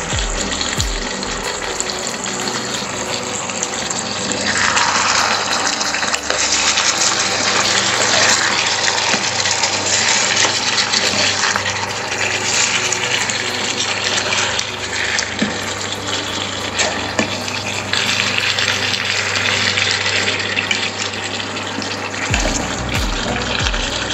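Marinated mutton pieces sizzling as they fry in hot mustard oil in a wok, a dense, steady sizzle that grows louder about five seconds in.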